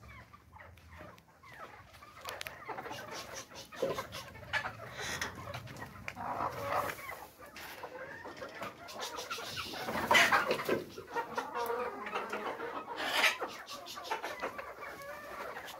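A flock of desi hens clucking, with louder outbursts about ten and thirteen seconds in and scattered light clicks.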